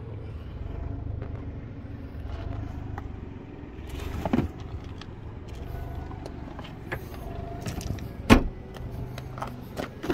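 Handling noises from a Kia Morning hatchback's cargo area and rear door: scattered clicks and knocks, with one loud thump a little past eight seconds and a click at the end as the rear door handle is pulled, over a steady low hum.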